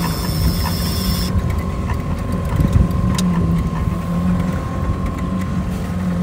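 Mercury outboard motor running steadily at trolling speed: a low, even hum under wind and water noise, with one brief click about three seconds in.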